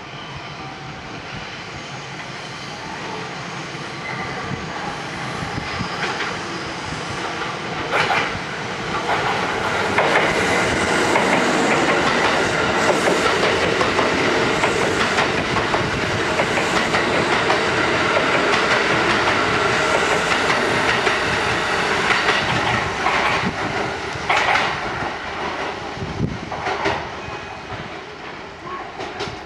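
Kintetsu 5200-series and 1230-series electric train running through a station without stopping. The rumble and clatter of its wheels build as it approaches, are loudest for about ten seconds as the cars pass close by, then fade as it pulls away. Sharp clacks of wheels over rail joints come now and then.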